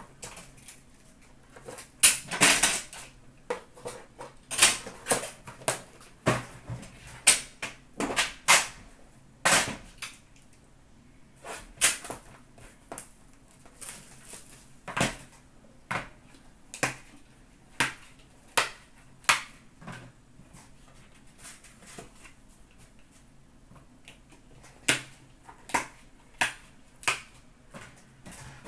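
Trading card boxes, tins and packs being handled on a glass counter: an irregular string of sharp clicks and taps, about one or two a second, with a longer rustle a couple of seconds in.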